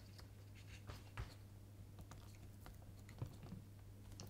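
Faint, scattered small clicks and taps of fingers handling the plastic housing of a Vitamix blender's speed-control potentiometer, with a steady low hum underneath.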